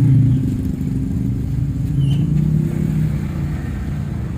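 Small motorcycle engine running at idle, its pitch dipping slightly and picking up again about two seconds in.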